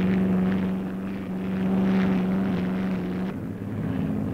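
An engine drones steadily at an even pitch, then drops to a lower, rougher drone about three seconds in.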